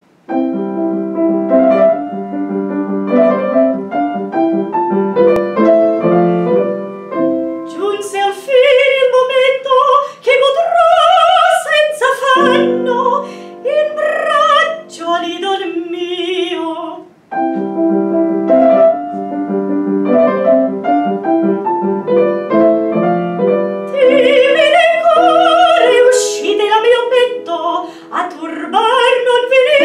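A woman singing a classical song in operatic style with wide vibrato, accompanied by piano. The piano plays alone at first; the voice comes in about eight seconds in, drops out at about seventeen seconds for a piano passage, and returns at about twenty-four seconds.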